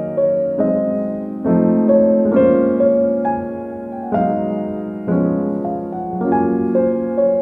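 Gentle background piano music: slow chords with a melody on top, a new chord struck about once a second and left to fade.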